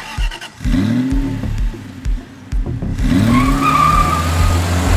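Sound-effect sting of a car engine revving twice and tyres squealing, over a regular low beat.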